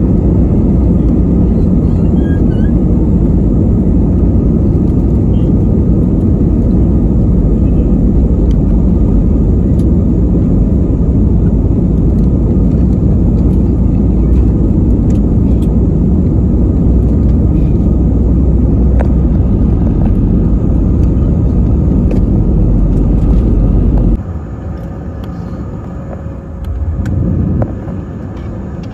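Takeoff roll of an Airbus A320-family jet heard from inside the cabin: engines at takeoff power over a heavy rumble of the wheels on the runway. About 24 seconds in the rumble suddenly drops away as the plane lifts off, leaving a quieter, steady engine drone, with a brief louder swell near the end.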